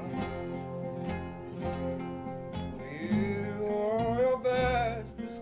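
Acoustic folk band playing an instrumental passage: steady picked notes on a nylon-string acoustic guitar over an upright double bass, with a held melody line that slides upward about halfway through.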